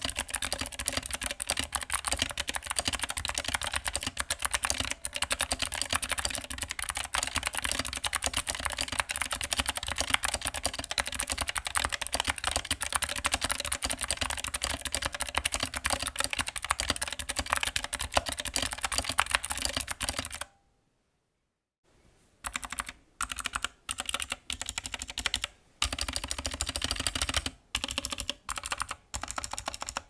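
Typing on a Skyloong SK64 60% keyboard with its stock keycaps and clicky optical blue switches: a dense, fast stream of key clacks. About two-thirds of the way in it stops for over a second, then comes back in short bursts with brief pauses between them.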